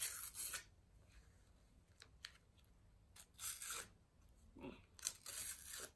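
A Panini sticker packet's wrapper being torn open by hand, in three short bursts of tearing: one at the start, one in the middle and one near the end.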